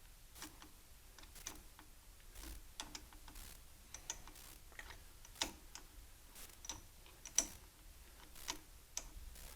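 Faint, irregular light clicks and metallic taps from hand tools working a battery cable clamp onto a tractor battery terminal, the sharpest about five and a half and seven and a half seconds in.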